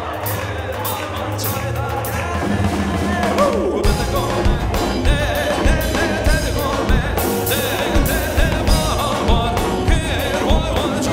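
Wedding band music with singing and an ornamented melody line; a steady drum beat of about two strokes a second comes in about four seconds in.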